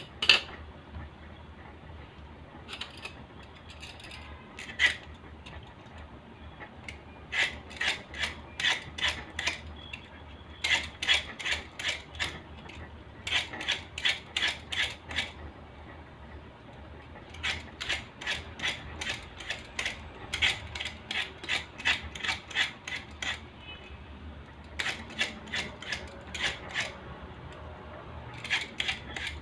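A handheld Y-shaped vegetable peeler scraping skin off produce in quick repeated strokes, about three a second, in runs of a few seconds with short pauses between. A sharp knock at the very start, as a knife is handled on the cutting board.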